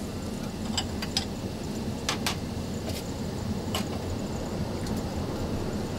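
Steady low rumble of Concorde's cabin in supersonic cruise, with several light clinks of china cups and saucers being set out on a tray.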